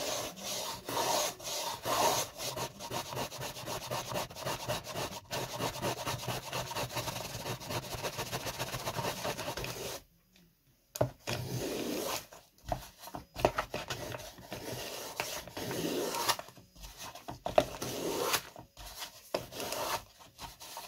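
Small handheld plane shaving a balsa block. Quick, closely spaced strokes for about the first half, a pause of about a second, then slower, more spaced strokes as the block is shaped.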